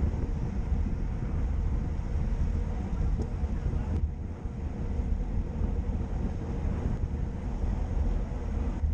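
Wind buffeting the microphone of a moving action camera, a steady low rumble of travel along the road, briefly easing about four seconds in.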